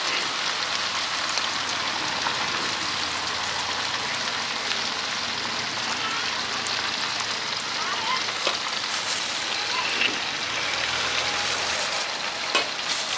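Crickets deep-frying in a metal basin of hot oil: a steady sizzle and bubbling, with a few short clicks.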